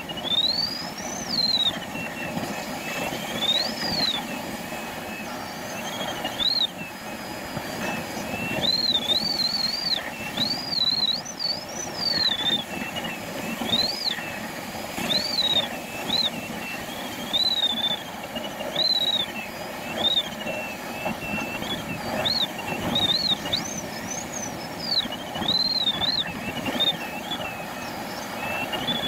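Glider's audio variometer tone gliding up and down in pitch over and over, over a steady rush of air past the canopy. The rising pitch signals climb, as the glider circles through lift.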